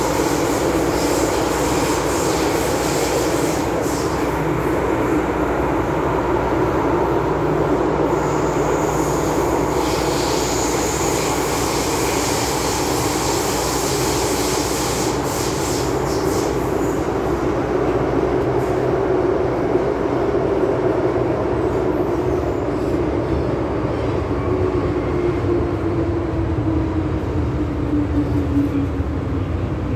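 MTR M-Train heard from inside the car running through a tunnel: a steady rumble and hiss of wheels on rail with a motor tone. Over the last several seconds the tone falls in pitch as the train slows into a station.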